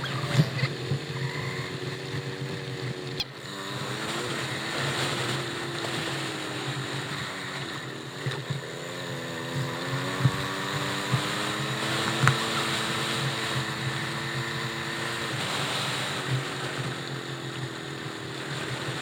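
A motor engine running, its pitch slowly rising and falling as the revs change, over a rushing, windy noise.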